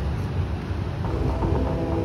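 A steady low rumble, and about a second in a sustained chord of several held notes begins and keeps sounding.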